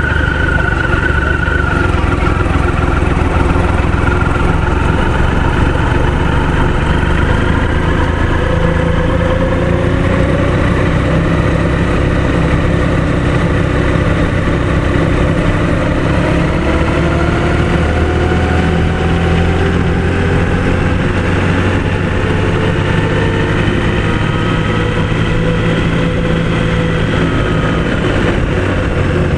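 Motorcycle engine running steadily at low town speed, its pitch slowly rising and falling as it rides.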